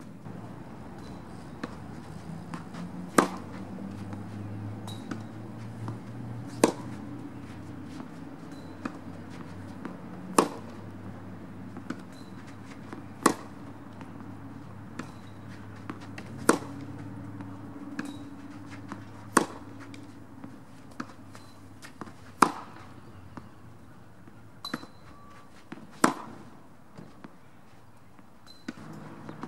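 Tennis balls struck by racquets in a baseline rally: a sharp pop about every three seconds, with fainter hits and bounces in between.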